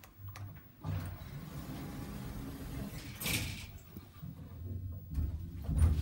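OTIS 2000H hydraulic elevator: the car doors slide shut after the floor button is pressed, with a short swish about three seconds in, then the car lurches into its upward run with a heavy low thump near the end. The thump is the elevator's hard start going up, a sign that it needs maintenance.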